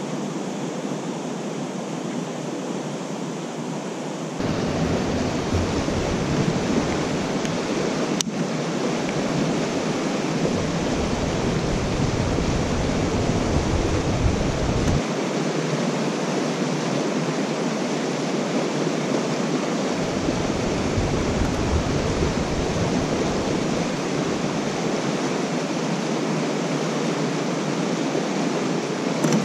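Steady, loud rushing white noise, the kind that runs on all night at the campsite. It steps up louder about four seconds in, with one faint click a few seconds later.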